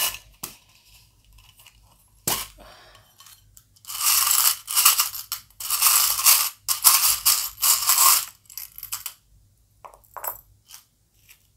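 Small metal charms rattling in a round metal tin. A sharp clatter comes at the start, then the charms are shaken and stirred for about four seconds, followed by a few scattered light clicks as single charms are picked out.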